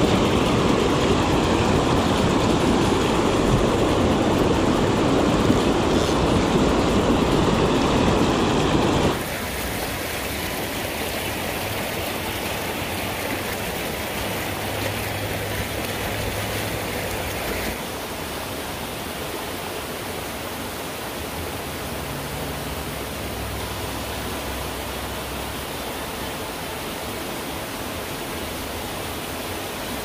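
Water rushing in a mountain creek, a steady even rush that is loudest at first and drops abruptly in level about nine seconds in and again a little before halfway.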